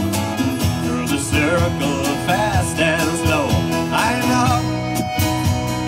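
Live folk-pop band playing: strummed acoustic guitar, accordion, electric bass and congas, with a gliding melody line over it that sounds like a voice singing.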